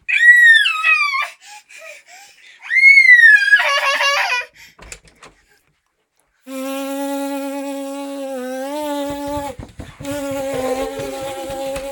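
Toddler squealing with delight in two loud, high-pitched shrieks that rise and fall. After a short pause comes a long steady held tone, and near the end another one over quick light footsteps.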